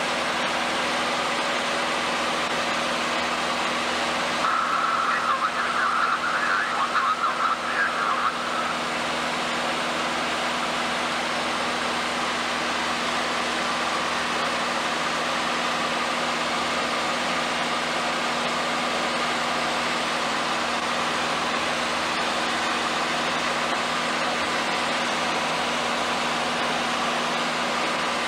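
Steady drone of a light aircraft's piston engine and propeller, heard from inside the cabin, with a few steady low hums. From about four to eight seconds in, a wavering higher sound rides on top of it.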